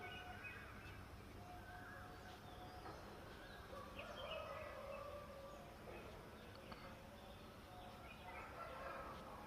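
Birds calling: scattered short pitched calls, some with a second tone above, over a faint steady outdoor background.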